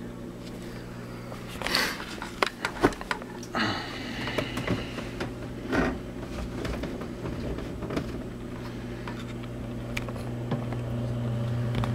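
A steady low hum, with scattered clicks and knocks and a short stretch of rustling a few seconds in.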